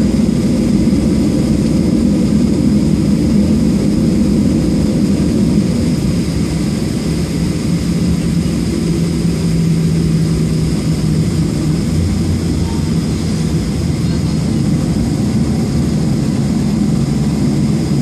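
Cabin noise of a Southwest Airlines Boeing 737 taxiing after landing: the jet engines running at low power as a steady rumble, with a thin high whine over it.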